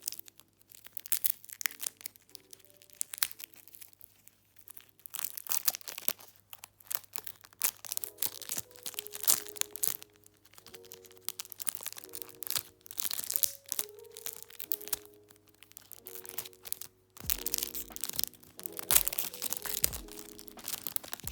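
Soft background music with gentle chords, over repeated crinkling and tearing of packaging being unwrapped by hand. A low beat joins the music near the end.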